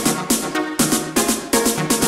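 Electronic background music with a steady, fast beat.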